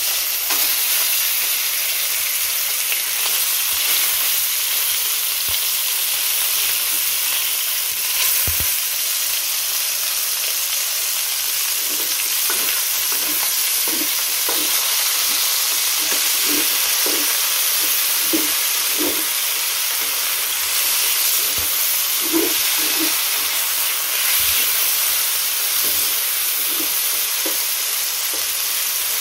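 Chicken breast pieces, just slid into hot oil in a pan, frying with a loud, steady sizzle. Through the second half a spatula turns them, with repeated soft knocks and scrapes against the pan.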